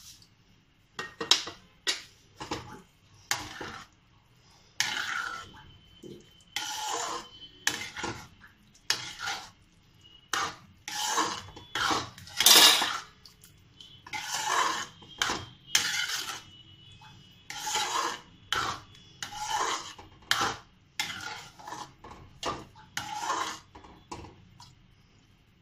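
A spoon scraping and clattering against a pot in repeated strokes, about one a second, as blanched vegetables are stirred through a thick white sauce.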